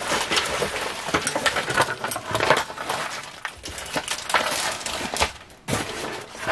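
Costume jewelry and a storage box being handled: a run of quick, irregular clinks, rattles and small knocks, with a short lull and then a fresh clatter near the end.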